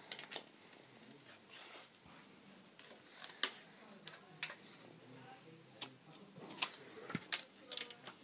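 Small scissors snipping through a sheet of Shrinky Dink shrink plastic, a series of sharp, irregular snips that come faster near the end.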